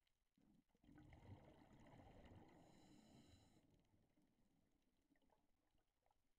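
Scuba diver's exhaled breath through the regulator underwater: a low rumble of bubbles starting about half a second in and dying away after about four seconds, with a brief high whine near the middle.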